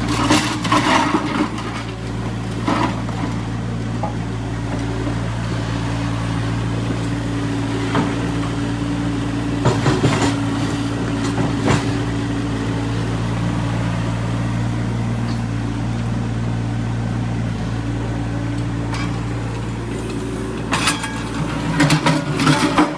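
Excavator engine running steadily with a low hum. Scattered knocks and clanks come through, with a cluster near the end.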